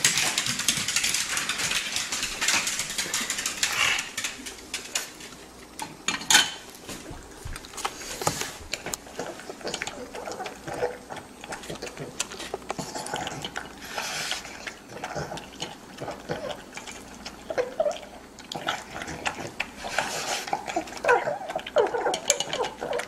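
Dog eating dry kibble from a stainless-steel bowl, the pieces clicking and clinking against the metal. The first few seconds hold a loud rushing noise, and there is one sharp clack about six seconds in.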